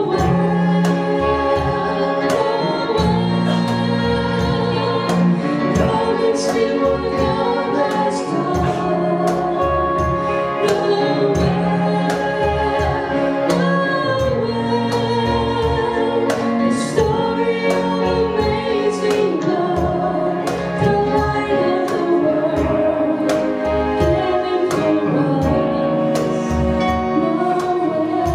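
Live worship band playing a Christmas song: voices singing over electric guitar and keyboard.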